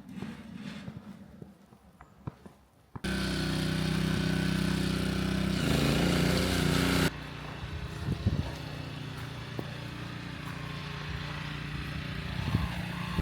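An engine running close by. It comes in suddenly about three seconds in, loud and steady, then drops abruptly to a quieter, steady hum about four seconds later. Faint footsteps are heard before it.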